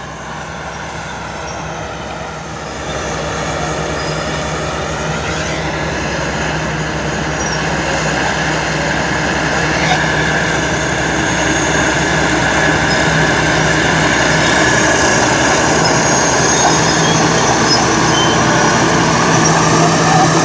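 Caterpillar D9G bulldozer working under load as it pushes soil with its blade: the diesel engine runs steadily while high whining tones from the machine rise and fall, and the sound grows gradually louder.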